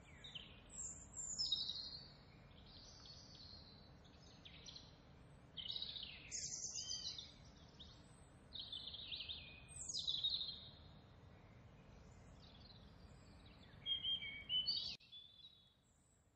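Birds singing: a string of bright whistled and chirping phrases, several birds overlapping, over a steady background hiss. The background hiss drops away near the end.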